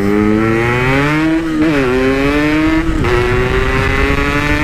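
Yamaha RX-King two-stroke motorcycle with a Packing Power PK1 aftermarket exhaust accelerating hard, the engine pitch climbing and dropping at two gear changes, about one and a half and three seconds in.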